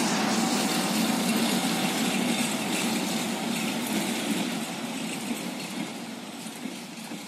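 Diesel locomotive engine running steadily as it hauls a container freight train away, its sound fading steadily.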